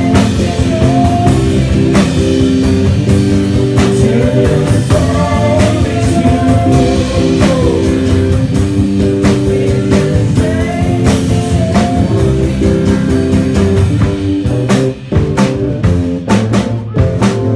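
Live rock band playing: guitar, bass and drum kit, with a melody line of bent notes over held chords. About fifteen seconds in the full sound drops away to sharp, separate drum hits.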